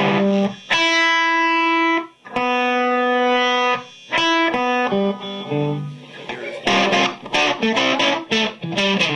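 Electric guitar played through a Victoria VIC105 EL84 tube amp at 5 watts, with its tunable boost switched in and set at 0. Two long ringing notes come first, then shorter notes, then a quick run of picked notes near the end.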